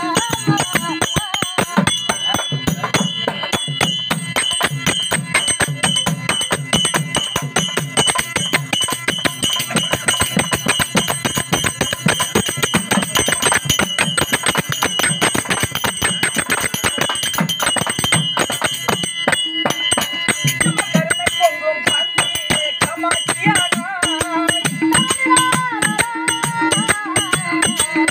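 Folk theatre accompaniment: small hand cymbals clash in a fast, steady beat over a pair of hand drums. A wavering melodic line comes in during the last several seconds.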